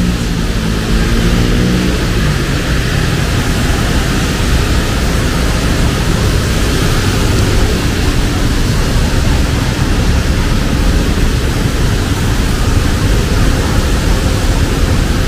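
Steady rain and road traffic on a busy city street, a loud even wash of noise. A vehicle engine's hum fades out within the first couple of seconds.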